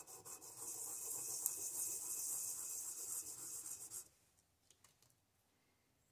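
A Kohler Magnum M18 exhaust valve stem end being sanded on roughly 220-grit sandpaper to take metal off and open up the valve clearance. Quick back-and-forth strokes run together into steady rubbing, which stops sharply about four seconds in.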